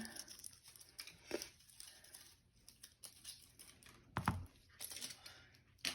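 Thick butter clay slime being handled: faint, scattered crinkling and squishing sounds, with one louder soft knock about four seconds in.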